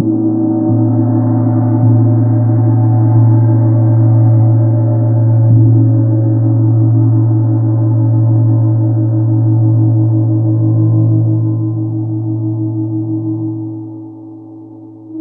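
24-inch Chau gong (tam tam) tuned to A#2, kept sounding by soft felt-mallet strokes about every second and a quarter, with a deep low hum and many higher overtones. The strokes stop after about six seconds and the gong rings on, fading out near the end.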